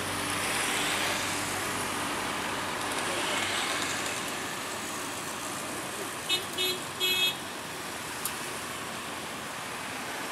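Road traffic passing, with tyre and engine noise swelling as cars and motorcycles go by. About six seconds in, a vehicle horn toots three times in quick succession, the last toot a little longer.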